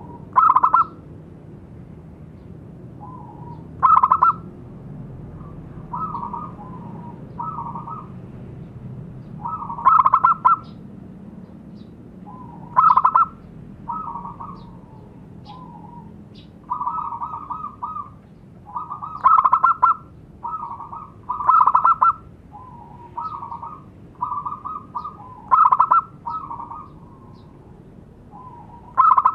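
Zebra doves (perkutut) cooing: rolling coo phrases repeat throughout. Loud phrases come every three to six seconds, with softer coos between them.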